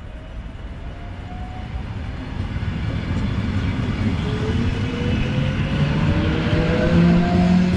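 Electric multiple unit running close past the platform, growing louder. Its motor whine climbs slowly in pitch over a low rolling rumble as it picks up speed.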